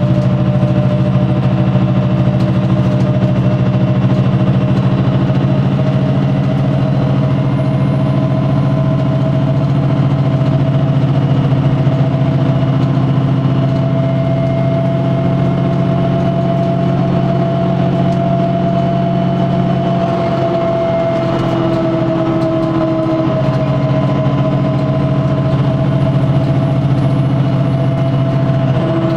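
VDL bus running steadily: a low, even engine drone with a higher whine that rises and falls slightly.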